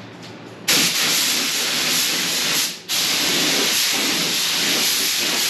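Harbor Freight gravity-feed paint spray gun hissing as it sprays a light dust coat of paint. The trigger is pulled under a second in, let off briefly near the middle, then held again.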